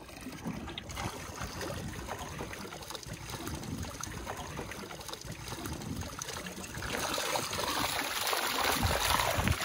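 Seawater splashing and draining through the mesh of a hoop bait net as it is hauled up from the surface, growing louder over the last few seconds, over a low rumble of wind.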